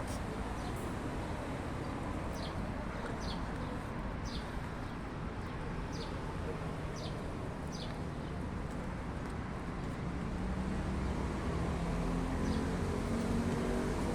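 Small birds chirping, short high falling notes about once a second, over outdoor background noise. A vehicle engine hum grows louder over the last few seconds.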